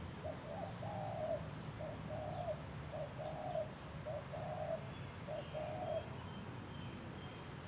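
Spotted dove cooing: five phrases, each a short note followed by a longer one, repeated about once a second for six seconds.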